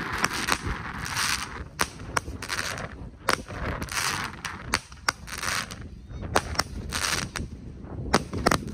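The Wicked Wonder firework going off: a string of sharp bangs at irregular intervals, a few a second, as its shots launch and burst, with stretches of hiss between the bangs.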